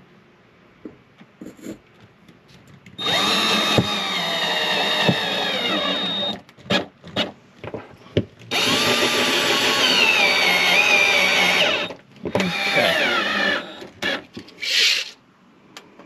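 Cordless drill driving pan-head screws down through aluminum tubing into the floor, in two long runs and a short one, its motor whine dropping in pitch during each run as the screw bites and tightens.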